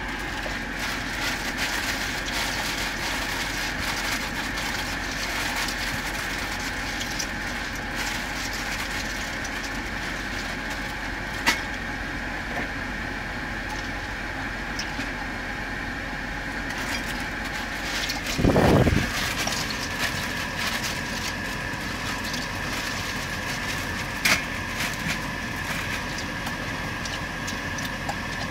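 Steady drone of a river ferry's engine, with a few light clinks of a spoon and pot on the stove. About two-thirds of the way through comes one brief, loud low thump.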